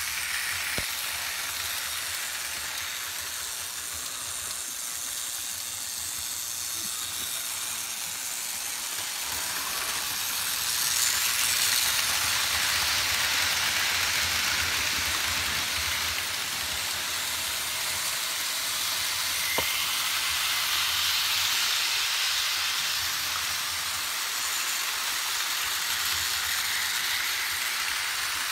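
Vintage Märklin HO model trains rolling over stamped-metal M-track, giving the steady metallic rushing that the track is known for, with a low hum underneath. It grows louder about ten seconds in, and there is one sharp click near twenty seconds.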